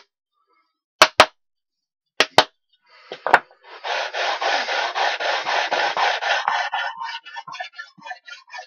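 A few sharp knocks in pairs, then a hand sanding block rubbing along the edge of a wooden panel: first one long continuous run of sanding, then quicker short back-and-forth strokes at about four a second.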